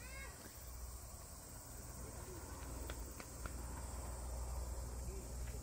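Summer insects droning steadily in a high band, over a low rumble from the walking camera. A brief voice sounds right at the start, and a few faint clicks come about halfway through.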